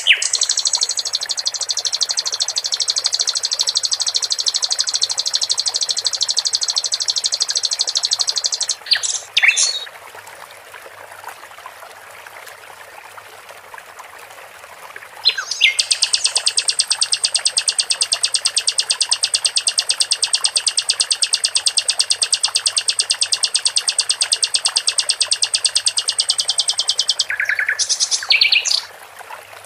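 Sikatan londo song: two long, rapid trills of repeated high notes, each lasting about ten seconds, the second starting about halfway through, with a few short separate notes at the end of each trill. A soft trickle of running water fills the gap between them.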